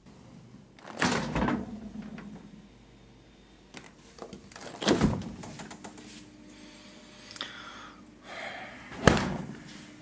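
Refrigerator doors being opened and shut: three heavy thuds about four seconds apart, the last and loudest near the end, with lighter knocks and handling noise between.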